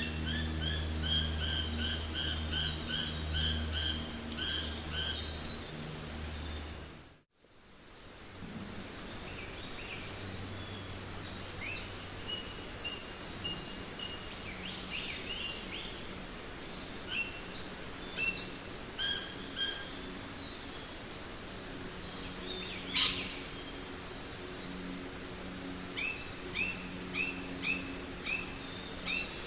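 Jungle ambience: many birds calling over a steady background hiss, with series of evenly repeated notes and one sharp falling call. About seven seconds in the sound drops out briefly to near silence, where one recording gives way to another; a low hum under the birds stops there.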